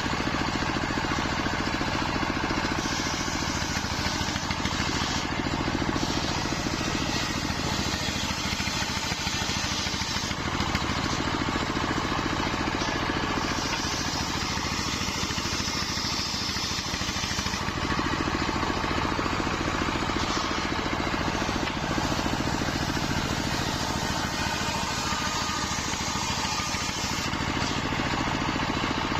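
Wide-bladed circular sawmill saw running steadily with a constant motor hum, its blade cutting through nyampoh wood with a hiss that gets brighter and harsher in stretches around the middle.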